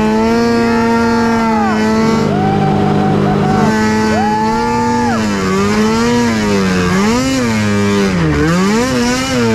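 Arctic Cat snowmobile engine running at high revs while the sled skims across open water, holding a steady pitch at first, then revving up and down over and over from about halfway through. A rider whoops a long 'woooo' over it.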